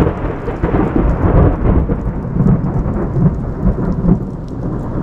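Rolling thunder over heavy rain: a deep rumble that swells in the first second or so and keeps going, with the steady hiss of rain.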